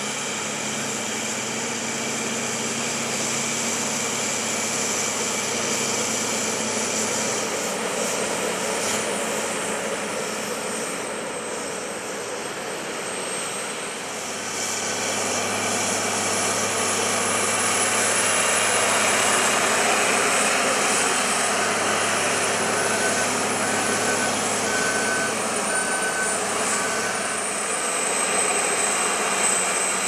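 John Deere 9630 articulated four-wheel-drive tractor's diesel engine working under load as it pushes silage up the pit with a push blade: a steady, dense engine noise with a high whine on top, getting louder about halfway through as the tractor comes close. Near the end a faint beeping repeats about once a second.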